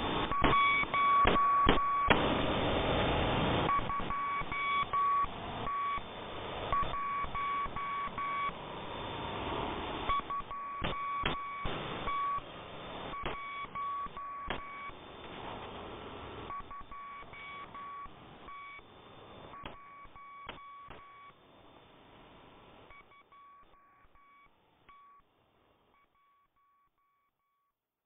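Electronic beeping at one steady pitch, sounding in short runs over a crackly, hissing background. It gradually fades out and ends in silence near the end.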